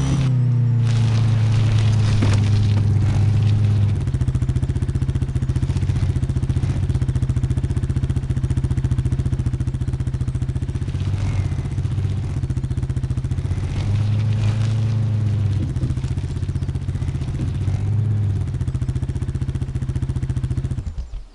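A vehicle engine idling steadily with an even low rhythm, then shut off and dying away near the end.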